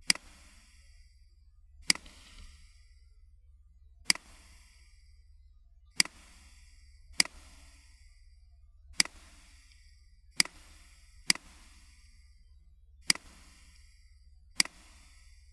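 Computer mouse clicks, about ten sharp single clicks at uneven spacing, roughly one every one and a half to two seconds, over a steady low hum.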